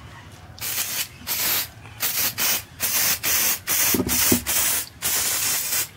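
Aerosol spray can of lubricant hissing in about eight short bursts, the last one the longest, as it coats a reground crankshaft's journals against corrosion.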